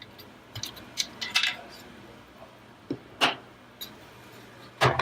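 Short clicks and light knocks of hard plastic parts being handled and set down: a cluster about a second in, two more around three seconds in, and a louder clatter near the end.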